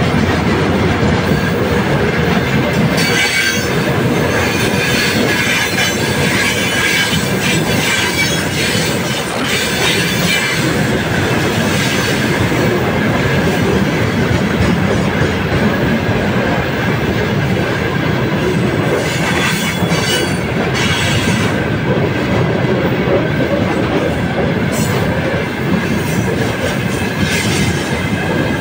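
Freight train of railway tank cars rolling past close by: a steady, loud noise of steel wheels running on the rails, with brief high wheel screeches now and then.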